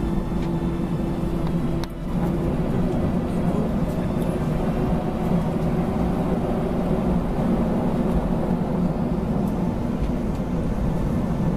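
Jet airliner cabin noise while taxiing: the steady hum of the engines with the low rumble of the wheels on the ground. A steady tone in the hum drops out about two seconds in.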